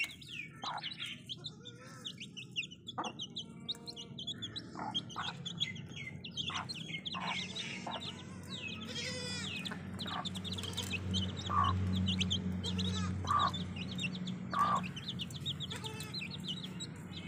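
Aseel chicks peeping in a constant stream of short, high chirps while they feed, with a hen giving a few low clucks in the second half.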